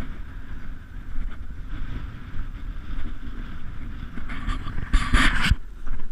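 Wind buffeting the microphone, a steady low rumble, with a brief louder rush of noise about five seconds in.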